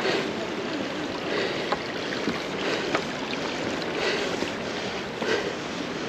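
Steady rush of flowing water from a stream or waterfall, with irregular crunching footsteps on the path.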